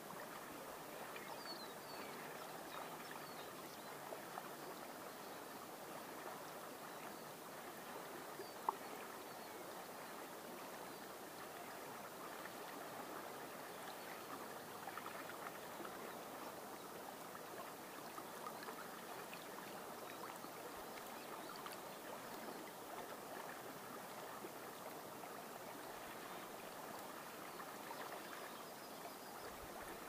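Upper Volga river water flowing and lapping at a grassy bank in a steady, even wash, with a few faint bird chirps early on and a single sharp click about nine seconds in.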